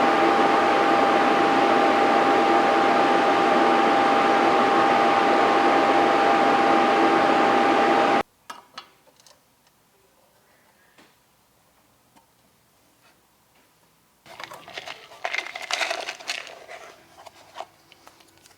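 A blower-type machine runs with a steady rush of air and a steady whine, then cuts off abruptly about eight seconds in. After a stretch of quiet with a few light clicks, a few seconds of uneven hissing come near the end.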